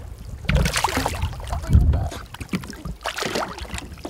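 Wind buffeting the microphone in gusts, strongest about half a second in and just under two seconds in, over the sound of water moving against the side of a small boat.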